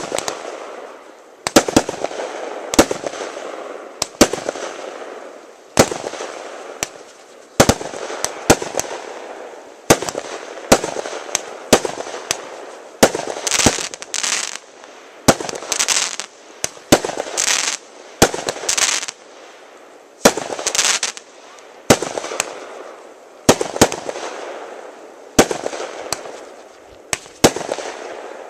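Aerial fireworks bursting overhead: a rapid series of sharp bangs, one or two a second, each trailing off into a noisy tail, with the bursts coming thickest around the middle.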